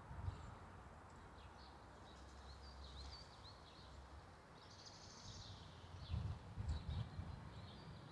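Small birds chirping and trilling over quiet outdoor background noise, with a few low rumbling swells about six to seven seconds in.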